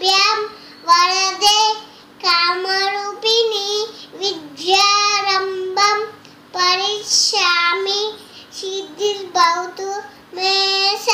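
A young child singing a nursery rhyme in a high voice, in short sung phrases broken by brief pauses.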